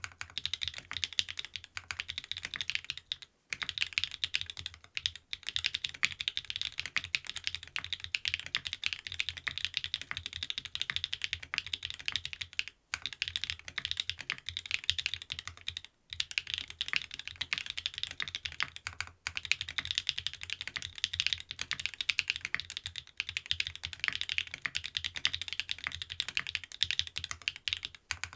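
Fast continuous typing on a TKD Cycle 7 mechanical keyboard with stock SW x Gateron Deepping switches, aluminium plate and PBT keycaps, its keystrokes clacking in a dense stream with a few brief pauses.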